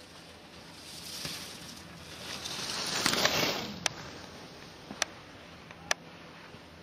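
Skis scraping across hard-packed snow: a hiss that swells to a peak about three seconds in and then fades, followed by three sharp clicks.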